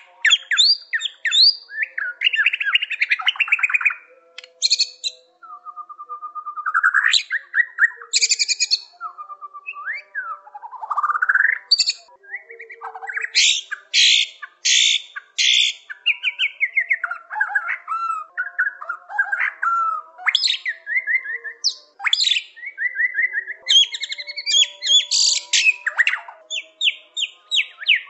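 White-rumped shama singing a long, varied song of clear whistles, rising and falling glides, rapid trills and sharp short notes, with only brief pauses.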